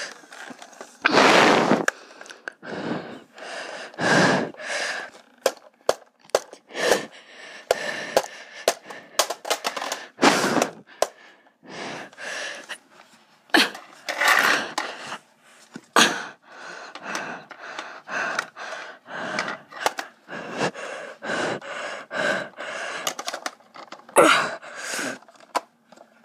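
Breathing close to the microphone in irregular puffs, with a few sharp plastic clicks from handling a Nerf blaster and its magazine.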